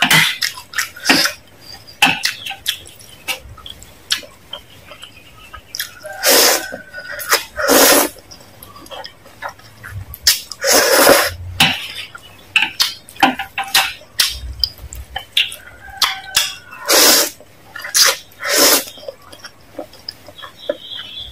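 Close-miked slurping and chewing of instant noodles: several loud, half-second slurps among wet chewing and smacking clicks.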